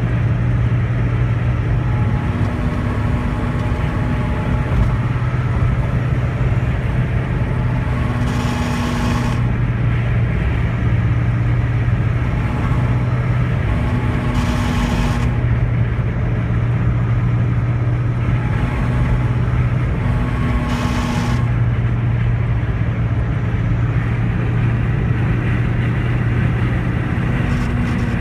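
1991 Mazda Miata's 1.6-litre four-cylinder engine running steadily under way at about 3800 rpm in fifth gear, with a grinding noise that comes and goes every few seconds. It is a fault the owner hears only in fifth gear around that engine speed.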